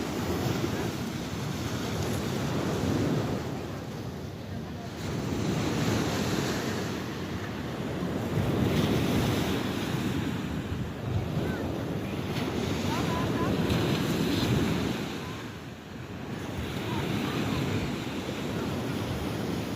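Sea water washing, with wind buffeting the microphone; the noise swells and ebbs every few seconds.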